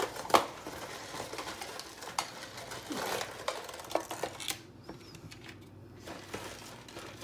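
Dry lasagna noodles clicking and rattling as they are pulled from their cardboard box and laid in a metal baking pan: a string of sharp clicks and taps, the loudest about a third of a second in.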